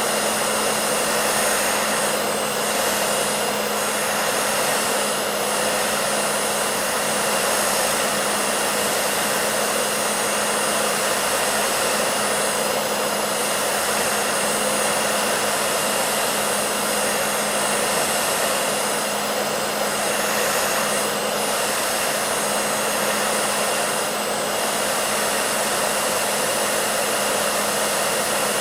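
Hair dryer running continuously at a steady setting: an even rush of blown air over a constant motor hum and whine.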